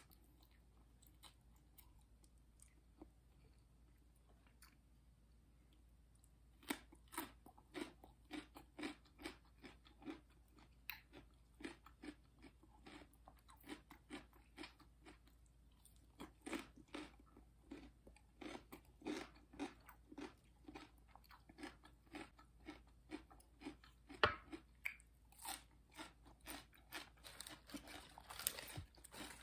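Close-up chewing of crunchy raw vegetables: a quiet stretch, then from several seconds in a long run of crisp crunches, about two a second.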